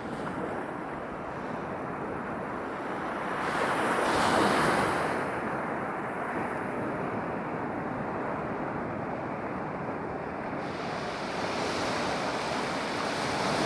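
Ocean surf washing on the beach, with wind noise on the microphone; the surf swells louder about four seconds in, then settles.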